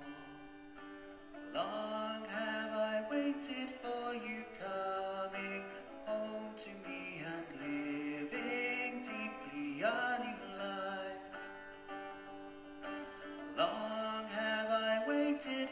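A hymn played on guitar with a singing voice, slow sustained notes with a fresh strum or phrase every few seconds.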